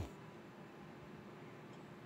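Faint steady hum from a fruit machine while its video reels spin, with a soft tick near the end.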